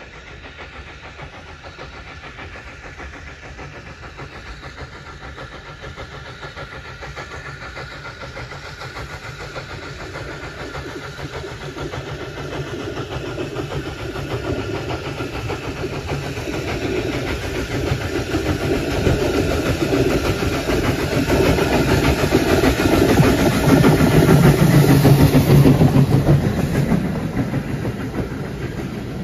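Steam locomotive hauling a passenger train, working with smoke from its chimney, growing steadily louder as it approaches and loudest as the engine passes close by, then dropping away as the carriages roll past.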